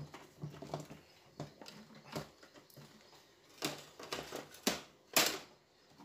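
Scattered clicks, knocks and light clatter of a stereo's metal-framed power supply board being handled and set back into its sheet-metal chassis, with the loudest knocks in the second half.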